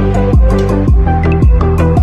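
Background music with a steady beat: an electronic kick drum about twice a second under sustained pitched tones.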